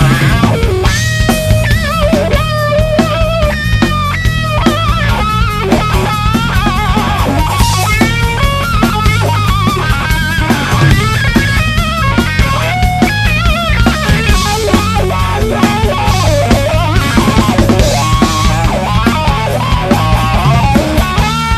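Live blues-rock band playing an instrumental break: a lead electric guitar plays bent notes with vibrato over bass guitar and drum kit.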